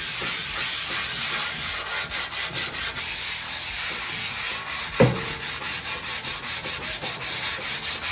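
Grill brick scrubbing rust off an oiled steel Blackstone griddle top: a steady, rhythmic back-and-forth scraping at about three strokes a second. There is a single sharp knock about five seconds in.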